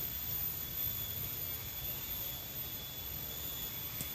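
Steady low rumble of outdoor background noise with a faint, steady high-pitched whine over it, and one short click about four seconds in.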